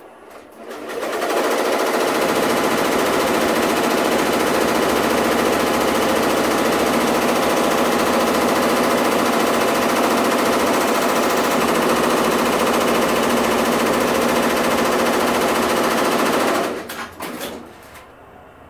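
Six-head, 15-needle Tajima TFMX commercial embroidery machine starting about a second in and running at full speed, a fast, even chatter of needle strokes as it sews a guide-stitch outline. It stops a couple of seconds before the end, followed by a few short knocks.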